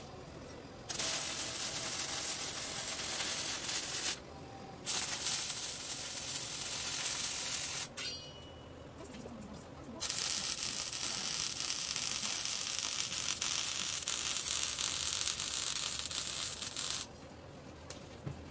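Wire-feed (MIG) welding on a steel tube car frame: three runs of steady crackling sizzle, the first two about three seconds each and the last about seven, with short breaks between.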